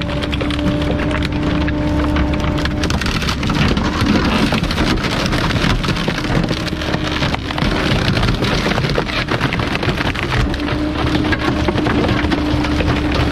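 Garbage truck's compactor crushing bulky items: continuous crackling and snapping of breaking material, with a steady hydraulic whine at the start and again near the end.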